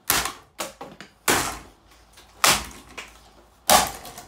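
Hard blows on a Lanson ceiling fan's brittle plastic blades: five sharp knocks, each ringing on briefly, roughly a second apart.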